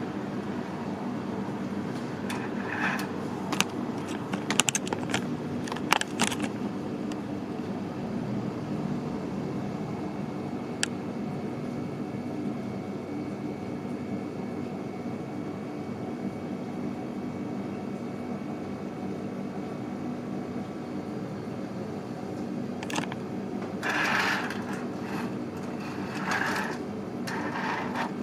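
A steady low machine hum, with a few sharp clicks a few seconds in and one more around the middle. Short scraping rustles near the end come from hands handling the tin-plate model tram on the table.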